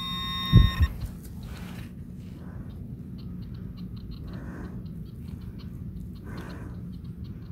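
Handheld metal-detecting pinpointer sounding a steady beep in the first second as it is held to a clump of dug soil, signalling the coin inside it, with two dull knocks. Then comes the soft crumbling of dirt between gloved fingers over a low steady background rumble.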